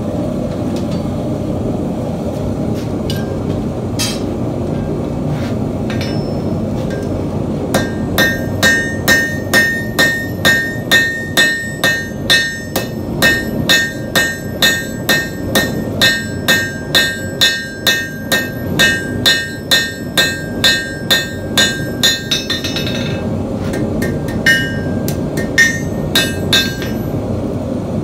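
Blacksmith's hammer striking a steel fin on an anvil: a few scattered taps, then about fourteen seconds of even blows at about two a second, each with a clear metallic ring, then a few last strikes, all over a steady roar.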